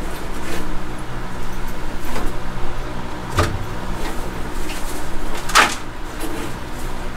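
Knocks and scrapes from hands working in a small glass terrarium, the sharpest about five and a half seconds in, over a steady low hum.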